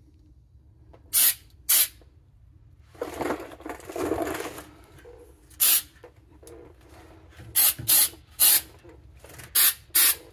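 Aerosol can of 3M rubberized undercoating sprayed onto a bus undercarriage in several short bursts, about eight in all, some in quick pairs. A longer, lower rustling noise comes about three seconds in.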